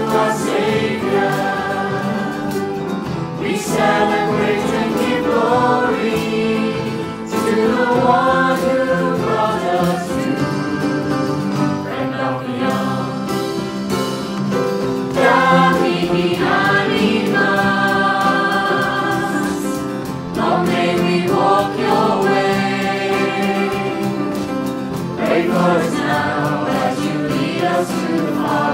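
Choir of children's and adults' voices singing a slow hymn, accompanied by a small band of guitar, keyboard and drums.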